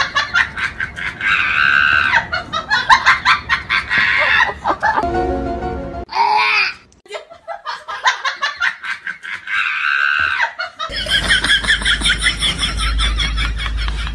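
Music with laughter over it, in several short stretches that change abruptly, with a steady deep bass line in the last few seconds.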